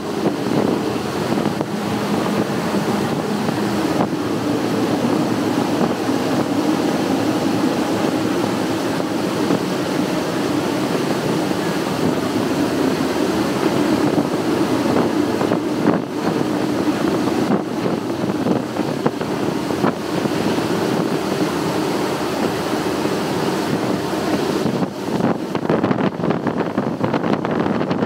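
Three Mercury 600 hp V12 Verado outboards running steadily at speed, with wind on the microphone and water rushing off the hull and wake.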